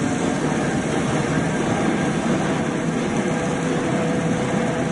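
A large diesel engine running steadily, a constant heavy drone with no change in speed.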